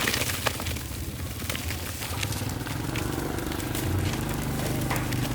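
A small motorbike engine running steadily, with a few sharp clicks and knocks over it.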